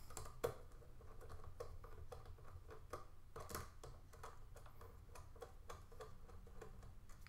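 Faint, scattered small clicks and ticks of hands working wires and a small hand tool at a speaker's terminals, over a low steady hum.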